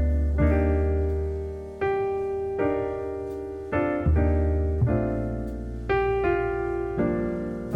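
Background music: slow solo piano playing held chords, each struck and left to fade before the next.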